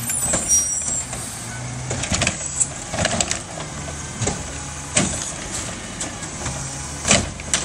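Garbage truck engine running as its automated arm grabs a wheeled plastic trash cart, lifts it and dumps it into the Curotto Can on the front forks. The engine note steps up and down under the arm's work, over a series of sharp clanks and bangs from the cart and arm, the loudest bang near the end.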